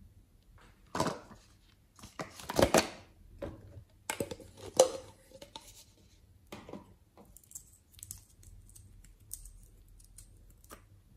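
Close handling sounds of small objects and a glass nail polish bottle. There are scratchy scrapes and clicks, loudest in the first half with a sharp click about five seconds in, then faint ticks as the bottle's cap is twisted open.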